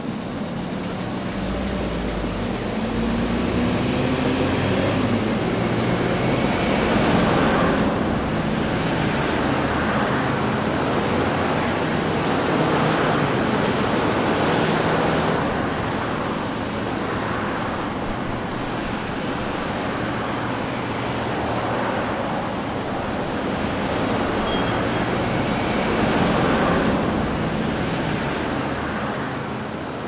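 Road traffic: a steady wash of tyre and engine noise as vehicles pass one after another, swelling as cars go by about seven, fifteen and twenty-six seconds in. A low engine hum sits under it in the first few seconds.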